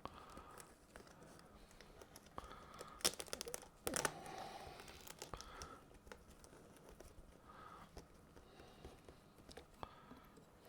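Fabric teleprompter hood being handled and fastened to its frame: scattered small clicks and rustling, a quick run of clicks about three seconds in, then a short ripping sound about a second later.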